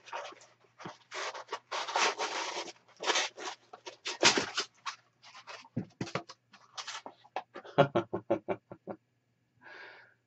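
Cardboard mug box being opened by hand: its flaps and the packing inside scrape and rustle in bursts, and a ceramic mug is slid out. Near the end comes a quick run of sharp clicks.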